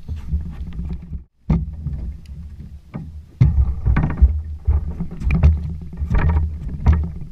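Water slapping against the hull of a flats skiff: a low rumble with irregular knocks, cutting out briefly about a second in and getting louder again about three and a half seconds in.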